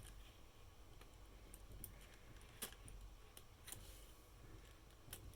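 Faint, scattered clicks of LEGO Technic plastic parts being handled and pressed together, with about six sharp ticks at irregular intervals as stoppers (bushes) are pushed onto axles.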